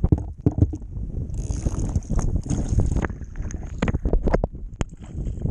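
Wind buffeting the camera microphone over waves slapping and splashing on a kayak hull in rough sea, with scattered sharp knocks and rubbing from a hand at the wet camera.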